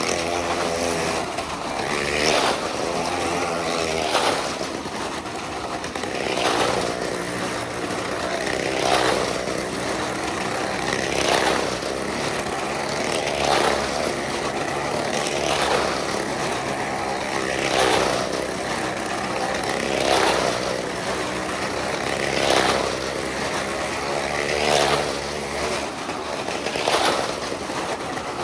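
Motorcycle riding laps around the inside of a vertical wooden wall-of-death drum. Its engine swells and fades each time it passes, about every two seconds.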